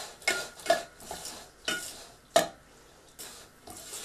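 Flat metal spatula scraping and knocking against a stainless steel mixing bowl while stirring gram flour into a mashed vegetable mixture: a run of short scrapes, the sharpest about two and a half seconds in, softer ones near the end.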